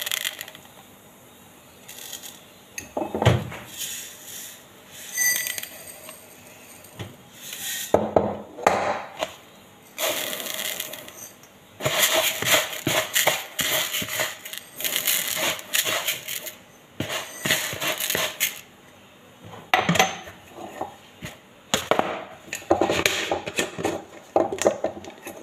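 Dry rice grains rattling and hissing as they are poured from a drinking glass into a large glass storage jar, among clinks and knocks of glass on glass. There is a short ringing clink about five seconds in, and the jar's plastic screw lid is handled near the end.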